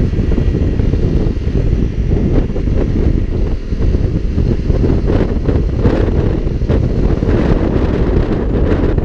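Wind buffeting the microphone of a moving motorcycle, a steady, dense rumble, with the bike's engine running underneath.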